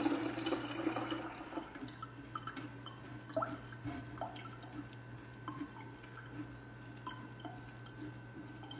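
Coconut water pouring through a mesh strainer into a glass pitcher, the stream thinning after about a second and a half into scattered drips and small clicks as the grated-coconut pulp is pressed in the strainer.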